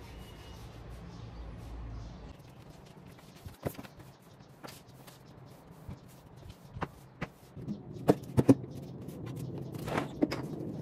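Scattered knocks and clatter of objects being picked up and set down while tidying, sparse at first and then busier, with three sharp knocks in quick succession a little past the middle and two more near the end. A low rumble underneath stops about two seconds in.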